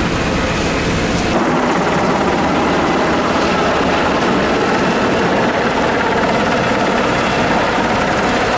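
Brief heavy-vehicle engine rumble, then, from about a second in, a helicopter flying overhead with a steady, loud rotor and engine noise.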